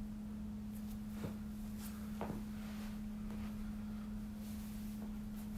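A steady low hum holding one pitch, with a few faint clicks about one and two seconds in.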